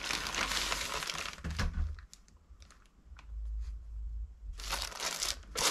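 Plastic packaging crinkling and rustling as a hand rummages inside a plastic mailer bag. It eases to a few light clicks about two seconds in, then rises to a louder burst of crinkling near the end.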